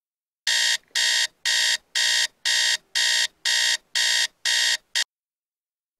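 Digital alarm clock beeping: about nine loud, buzzy beeps, each nearly half a second long, a little under two a second. The last beep is cut short and the beeping stops abruptly about five seconds in.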